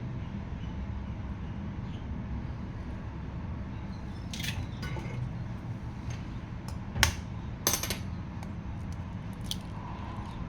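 A few sharp clinks and knocks of kitchenware, the loudest about seven seconds in with a quick pair just after, over a steady low background hum.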